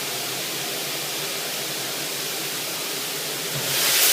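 Clothes dryer running with a steady loud rushing noise, swelling louder near the end.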